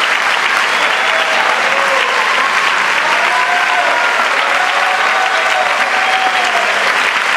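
Audience applauding steadily, with a few drawn-out cheers rising and falling over the clapping.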